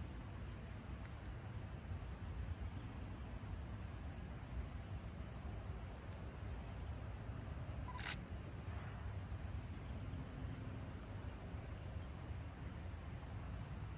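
Small birds chirping in short high notes, scattered and then in a quick run near the end, over a steady low rumble. One sharp, louder click about two-thirds of the way through.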